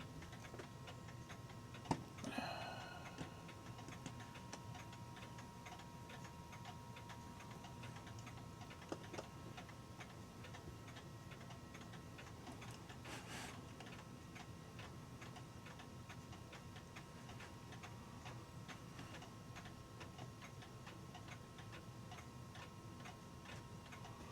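Faint, steady ticking of a mechanical clock, with a few small clicks and a short rattle from the movement's parts being handled as its nuts come off.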